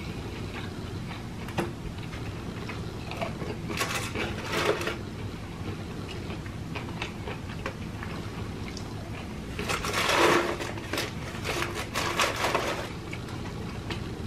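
Close-miked chewing of fried chicken nuggets, with crunchy bursts about four seconds in and again around ten to twelve seconds. A steady low hum runs underneath.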